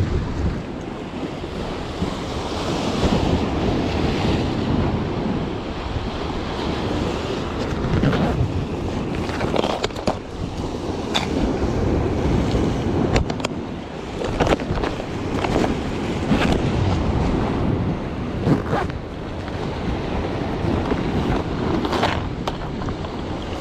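Wind buffeting the microphone over sea waves washing against the rocks. A few sharp clicks and knocks of plastic lure boxes being opened and handled sound through the middle and again near the end.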